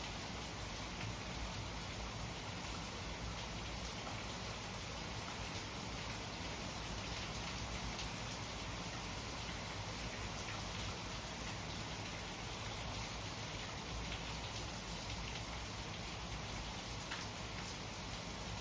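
Steady rainfall, with scattered faint ticks of individual drops.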